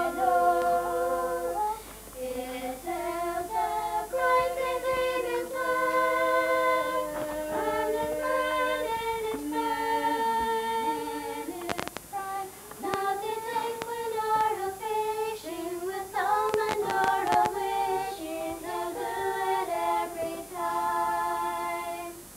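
Unaccompanied female voice singing a slow melody in long held notes, with a few clicks and knocks around the middle; the singing stops just before the end.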